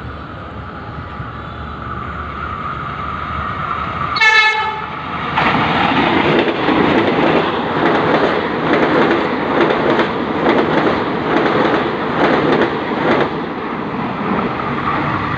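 A motorbike horn beeps once, briefly, about four seconds in. Just after it a train passes close by for about eight seconds: a loud rumble with rhythmic wheel clatter.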